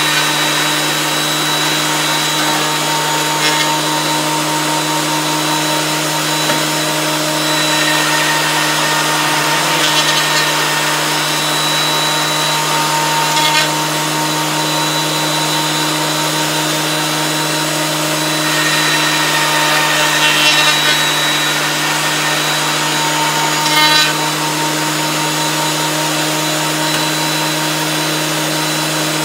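Wood planer running steadily with a loud hum and whine, swelling briefly several times as the cutter takes wood.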